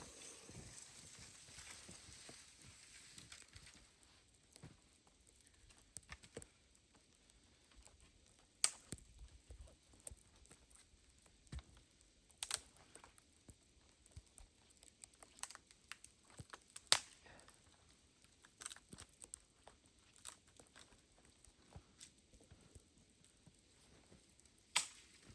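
Irregular sharp clicks and cracks, a few louder ones among many faint ones, over a low hiss.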